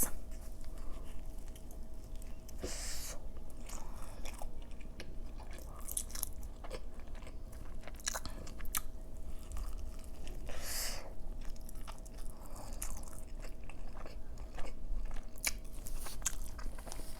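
Close-miked eating: biting into and chewing a large burrito of chicken and fries, with many small wet mouth clicks and some soft crunches.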